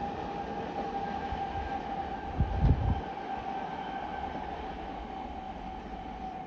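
Passenger train rolling past on a curve, its steady rumble carrying a thin, steady high-pitched tone, with a brief surge of low rumble about two and a half seconds in.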